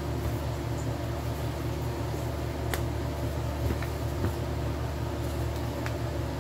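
A steady low mechanical hum, with a few light clicks in the middle.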